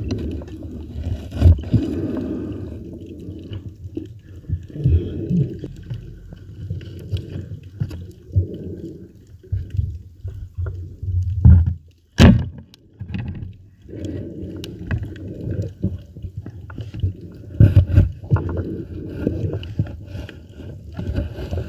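Muffled underwater water noise picked up by a submerged camera: uneven swells of sloshing and gurgling, with scattered sharp knocks and clicks.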